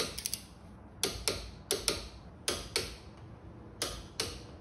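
Ratchet wrench clicking on the brake caliper's pin bolts: short sharp metallic clicks, mostly in pairs, about once a second.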